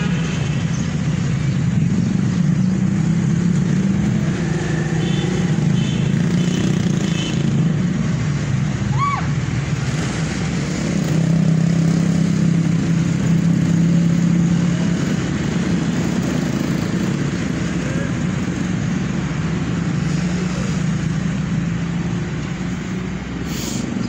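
A motor running nearby, a steady low drone, with a brief high squeak about nine seconds in.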